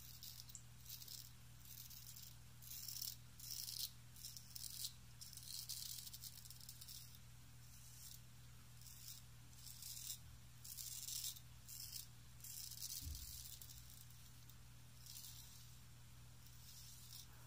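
Antique Wade & Butcher 7/8 full hollow-ground straight razor scraping stubble off the neck in short touch-up strokes, a faint rasp repeating every second or so with brief pauses, tailing off near the end.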